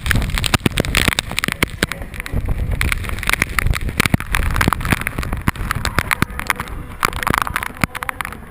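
Hurricane wind buffeting the microphone with a constant low rumble, while heavy rain spatters in dense sharp ticks and a hiss that swells and fades with the gusts.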